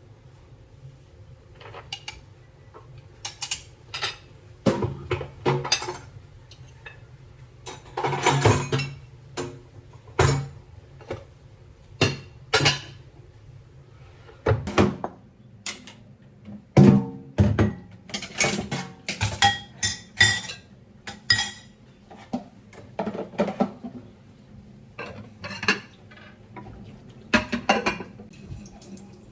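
Dishes, pots and cutlery clinking and clattering as they are handled and set down: an irregular run of sharp clanks with short pauses.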